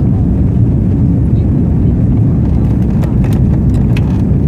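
Jet airliner's engines and rushing air heard from inside the passenger cabin as a loud, steady low rumble during the takeoff and climb, with a few faint rattles near the end.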